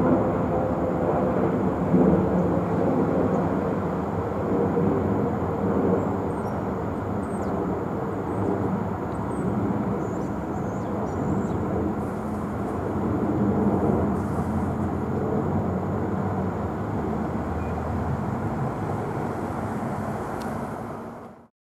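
Jet engines of a climbing Airbus A320 (IAE V2500 turbofans), a steady rumble that eases a little as the aircraft climbs away, then cuts off abruptly near the end.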